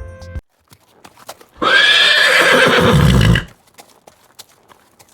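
A horse neighs once, a loud, rough call of about two seconds, with faint hoof clops before and after it.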